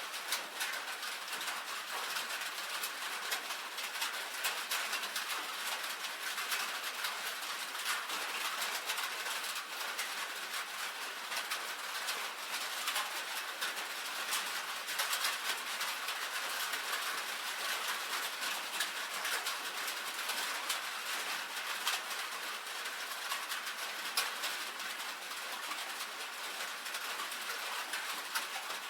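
Steady rain on a tin roof: a dense, even patter of countless drops ticking on the sheet metal.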